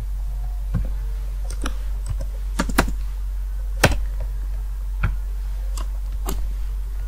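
Computer keyboard and mouse: about nine separate, unevenly spaced keystrokes and clicks over a steady low hum.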